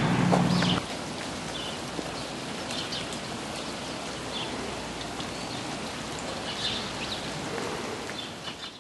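Steady outdoor hiss, like light rain, with scattered short high chirps. A low steady hum cuts off about a second in.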